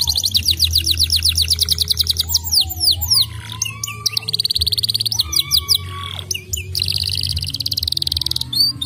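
A domestic canary singing: fast trills of rapidly repeated high notes, broken in the middle by slower, lower gliding whistles.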